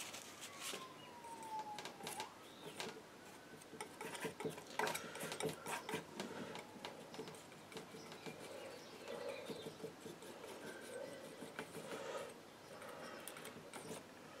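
Palette knife tapping and scraping on the palette and board while oil paint is picked up and worked, as a string of light clicks and scrapes. A thin falling whistle sounds in the first two seconds.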